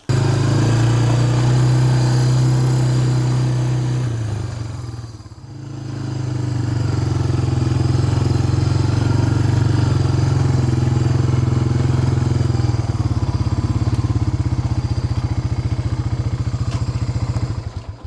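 Motor vehicle engine running steadily, easing off briefly about five seconds in, then picking back up; near the end it settles into a slower, pulsing beat.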